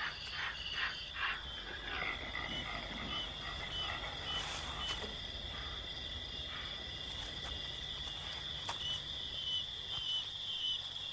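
Night chorus of insects and frogs: a steady high-pitched trill, short chirps repeating about twice a second, and a quick series of calls in the first two seconds.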